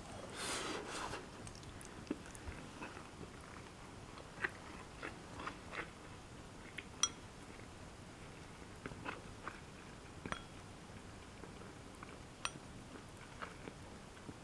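A person eating pork ginger stir-fry and rice: chewing, with scattered light clicks of wooden chopsticks against a ceramic bowl, some ringing briefly. A short rustle near the start.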